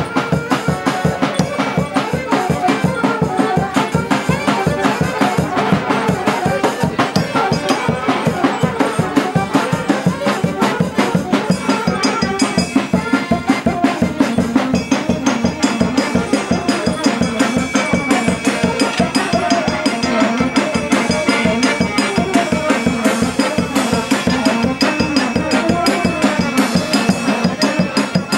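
Live folk band music: a piano accordion playing a lively tune over a steady, quick beat on a bass drum with a mounted cymbal.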